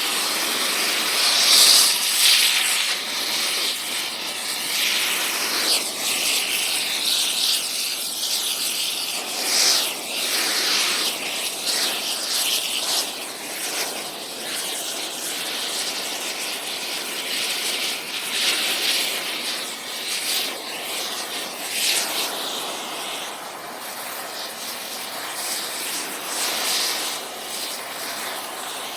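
Air torch on metal: a continuous rushing hiss, strongest in the high register, that swells and eases every few seconds.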